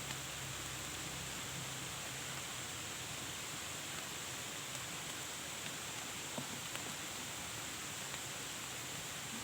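Steady hiss of falling rain, with a few faint drop ticks about six to seven seconds in.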